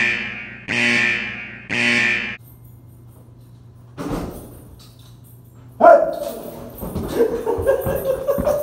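Alarm sound effect: three short, even-pitched blasts about a second apart. About six seconds in comes a sudden loud yell from the scare, held and wavering, over scuffling.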